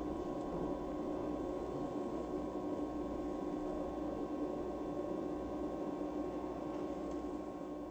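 Tatra T5C5 tram's bogies squealing as it rounds the turning loop: a steady ringing squeal of several held tones from the wheels on the curved track.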